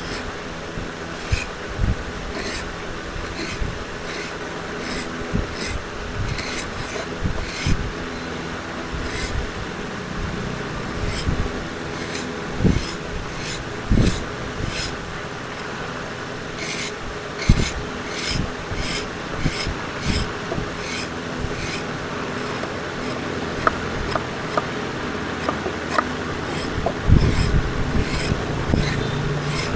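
Oak being worked by hand with a rasp-like tool in repeated short scraping strokes, coming in runs, over a steady low hum.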